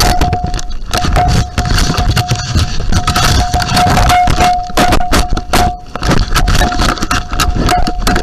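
An animal nosing and pushing at a trail camera: dense scraping, rubbing and knocking of fur and muzzle against the camera housing and its microphone, with a thin high tone coming and going underneath.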